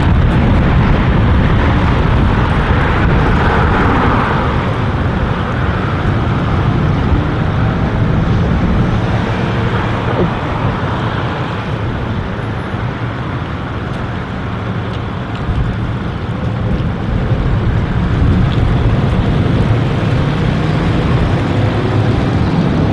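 Road traffic at a street intersection: cars running and passing, a steady traffic noise with a slight lull about two-thirds of the way through.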